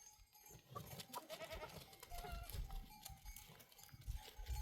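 Goats bleating faintly in short calls, with scattered clicks and low rumbles.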